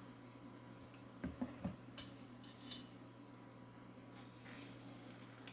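Faint clunks and clinks of a hot metal muffin tin being taken out of the oven: a few soft low knocks between one and two seconds in, then a few light metallic clicks, over a steady low hum.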